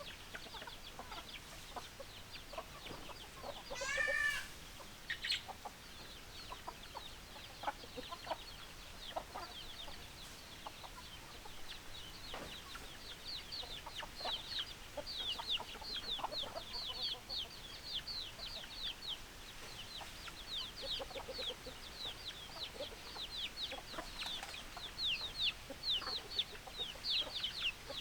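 Chickens calling: clucking, with one louder call about four seconds in and a dense run of short, high chirps through the second half.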